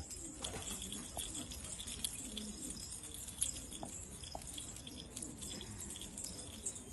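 Domestic pigeons cooing softly, with a few faint scattered clicks.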